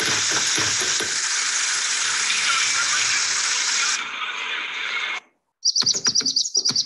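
A recorded soundscape of heavy rain on an outdoor basketball court: a steady hiss of rain with a few low thumps. It thins and cuts off suddenly about five seconds in. After a brief gap, a new recording starts with rapid high bird chirps over low thumps.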